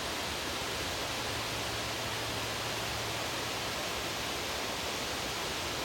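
Steady rush of white water, an even hiss with no change in level.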